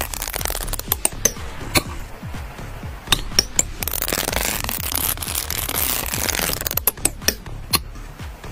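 Background music, over irregular sharp clicks of a metal palette knife tapping and scraping against a paint palette as acrylic paint is mixed.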